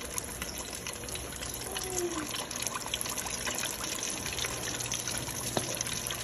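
Floured chicken pieces deep-frying in 350-degree oil in a stainless stockpot, the oil sizzling and crackling steadily.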